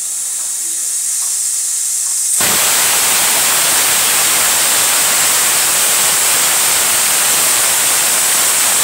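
Stovetop aluminium pressure cooker on the boil: steam hisses softly and builds at the weight valve, then about two and a half seconds in the weight lifts and the cooker whistles, a loud steady hiss of escaping steam. The cooker has reached full pressure.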